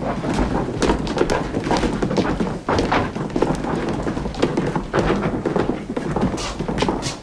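Footsteps of several people walking down a wooden staircase: many overlapping, irregular knocks of shoes on the wooden steps.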